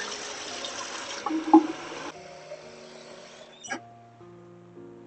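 Tap water running to fill a vase for flowers. The flow gets quieter about two seconds in and stops with a click a little after the middle, with a knock of the vessel about a second and a half in.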